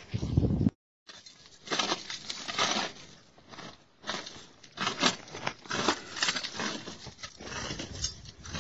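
Loose stones and dry dirt crunching and scraping in irregular strokes, as rocky ground is dug and stepped on. A brief low rumble cuts off abruptly near the start.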